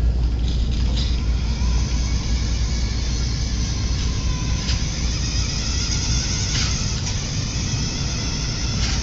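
Radicame R-900 radio-controlled toy car driving over a hard floor: its electric drive motor and gears run steadily with a low rumble, with a few faint clicks.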